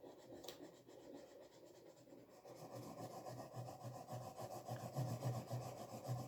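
A pen scribbling back and forth on paper in quick, steady rubbing strokes, filling in a coloured area.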